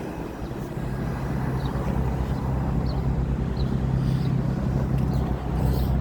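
Carrier outdoor air-conditioner condensing unit running: a steady low hum from the compressor and the whoosh of the condenser fan.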